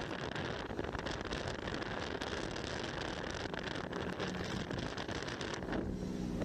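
Wind rushing over the microphone and road noise while riding in a moving auto-rickshaw. A steady engine hum rises out of the rush near the end.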